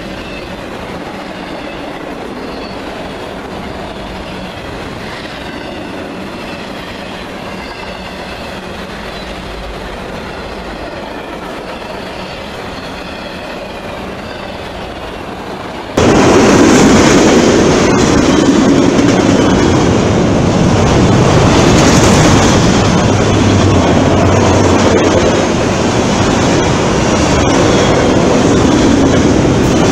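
Autorack freight cars rolling past close by: a steady rumble and clatter of steel wheels on the rails, which jumps abruptly much louder about halfway through.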